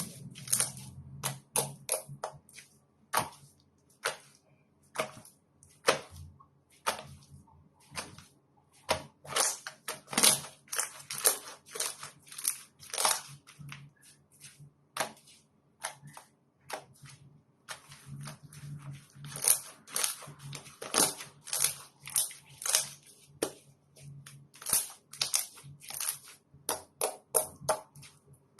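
Slime being squeezed and pressed by hand, giving irregular runs of short crackling pops and clicks.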